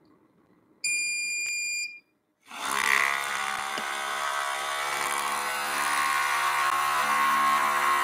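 A single beep about a second long, then after a brief gap the Outin Nano portable espresso maker's pump starts buzzing and runs steadily, building pressure before any coffee has come out.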